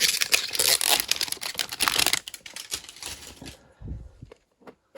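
Plastic packaging and card-tin contents being handled: rapid crinkling and rustling with quick clicks for about two seconds, then a few scattered clicks and a soft thump.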